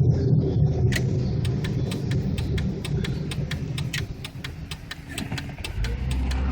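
1999 Chevrolet Malibu on the move with badly worn wheel bearings: a low rumble that eases off toward the middle. From about a second in, a rapid, even ticking of about three to four clicks a second runs alongside it, and a steadier low hum comes in near the end.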